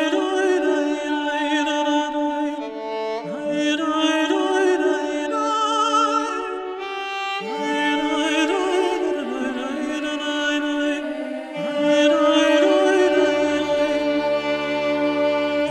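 Slow background film score: a melody with vibrato, sung or bowed, over sustained string chords, phrased in long held lines, with deeper bass notes entering near the end.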